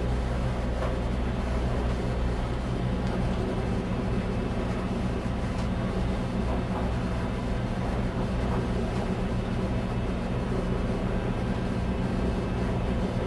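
A catamaran's engine running steadily, with an even low hum and continuous water and wind noise over it.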